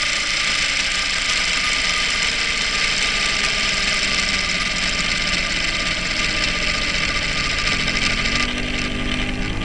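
R/C helicopter's engine and rotor running steadily at idle with the model sitting on the ground, heard up close from on board: a loud, even hiss over a steady hum. About a second before the end the hiss falls away and a lower hum with a slowly rising pitch comes through.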